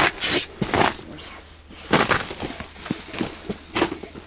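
Several short rustling and scuffing bursts with small knocks, close to the microphone, from people shifting and handling gear on foam mats beside the ice hole while a fish is reeled up, over a steady low hum.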